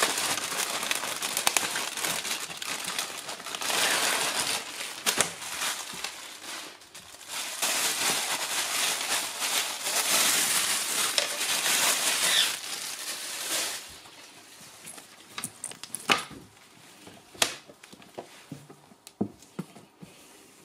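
Clear plastic garment bag crinkling and rustling as a track jacket is handled and pulled out of it, loud for about the first fourteen seconds. After that comes quieter rustling with a few light taps as the jacket is laid flat and smoothed.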